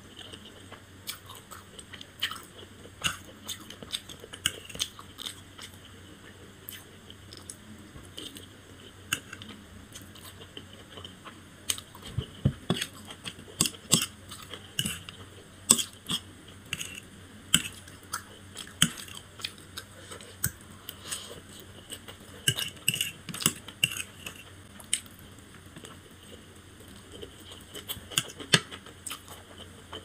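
Close-miked chewing of fried chow mein noodles: many small, sharp wet mouth clicks, with a fork clinking and scraping against the plate. The clicks come thickest through the middle.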